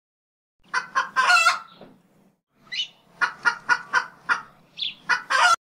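Chicken clucking and squawking: a longer squawk about a second in, then a string of short clucks about three a second, ending in another squawk that cuts off suddenly.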